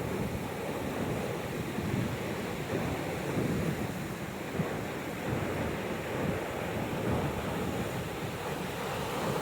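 Ocean surf breaking and washing on the beach, a steady rush, with wind buffeting the microphone.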